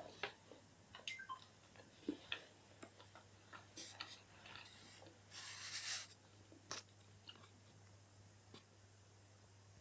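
Faint, close-up mouth sounds of someone chewing chocolate: scattered small clicks and smacks. There is one longer, louder stretch a little past five seconds in, and the last few seconds are nearly quiet.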